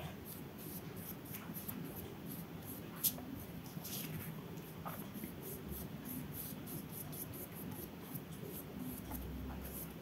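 Paintbrush working gouache over paper in short strokes, a faint, scratchy brushing, with one light tick about three seconds in.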